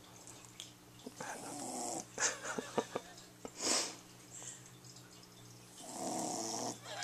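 Dog snoring in its sleep: two long snores, one about a second in and one near the end, with a quick run of short sputters and a breathy exhale between them.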